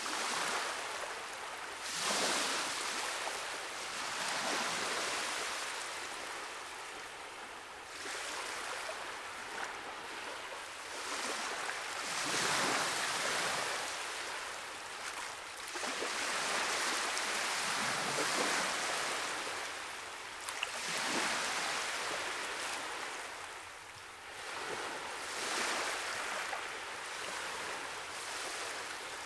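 Ocean surf: waves washing in and breaking against rock, the rush swelling and falling back every few seconds.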